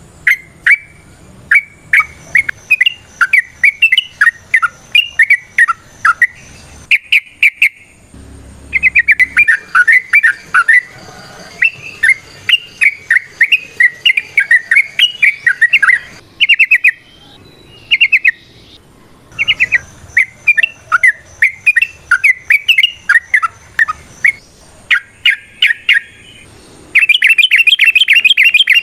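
Yellow-vented bulbul (trucukan) singing its rapid chattering song: long runs of quick, bubbly chirping notes broken by short pauses. A very fast, dense trill comes near the end.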